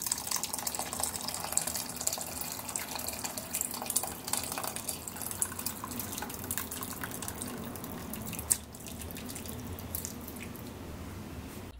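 Seasoned meat broth poured from a stainless steel pan through a mesh strainer into a pot: a steady splashing, trickling stream with small clicks, and one sharp knock a little past two-thirds of the way through. Near the end the meat scraps slide from the pan into the strainer.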